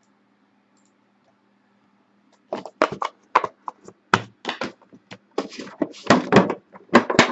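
Cardboard sports-card box being handled: after a faint steady hum, a quick run of knocks, taps and scrapes begins a couple of seconds in as the box is picked up, moved and slid against its sleeve.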